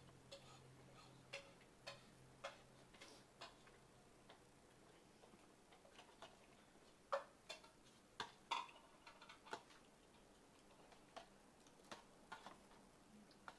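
Eating sounds: scattered, irregular soft clicks and smacks of chewing and mouth noises, with a few louder ones about halfway through.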